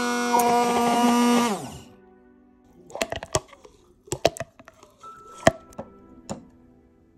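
BRUNO stick blender motor running steadily, then switched off about a second and a half in, its pitch falling as it spins down. Then a few sharp knocks and clicks as the blender head is worked against the plastic measuring cup.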